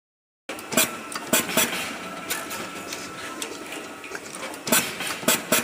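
Automatic wire cutting, stripping and tinning machine running: a steady mechanical hum broken by sharp clacks of its moving parts, a few in the first two seconds and a quick cluster near the end.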